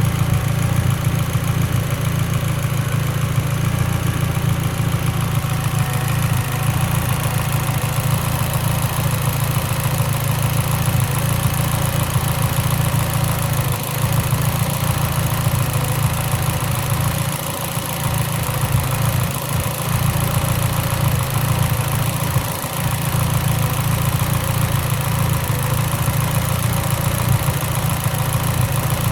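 Mitsubishi Lancer Evolution X's turbocharged 2.0-litre four-cylinder engine idling, with a few brief dips in the running near the middle: a lean idle misfire.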